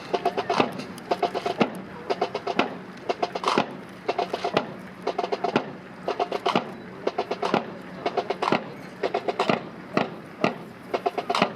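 Rifle drill by a cadet drill team: rifles slapped, spun and struck in unison, giving clattering clusters of sharp knocks about once a second, each cluster a little ragged as many rifles land at nearly the same time.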